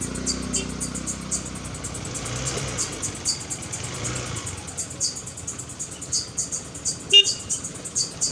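Motorcycle engine running at low speed in slow traffic, mixed with background instrumental music.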